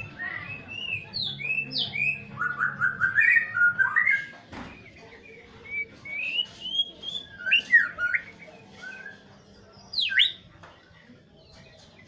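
White-rumped shama (murai batu) singing: clear whistled phrases that rise and fall, with quick runs of repeated notes. There is a short lull about halfway and one last sharp phrase about ten seconds in.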